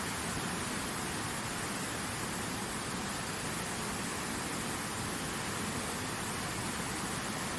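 Falling water making a steady, even rushing hiss with no break or change.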